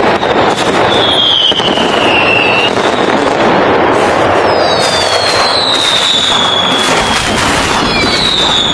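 Fireworks going off in a dense, continuous crackle of pops. Several whistling fireworks glide down in pitch over it: one about a second in, a pair around the middle, and another near the end.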